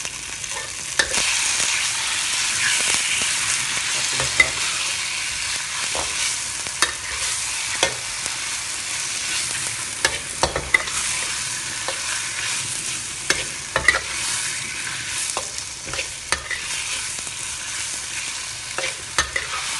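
Marinated chicken sizzling in hot oil in a wok, being stir-fried with a metal spatula that scrapes and clacks against the pan at irregular moments.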